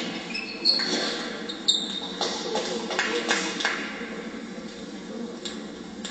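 A celluloid table tennis ball bouncing on the sports-hall floor, a run of light knocks that dies away, after a couple of sneaker squeaks on the court surface. The hall is reverberant.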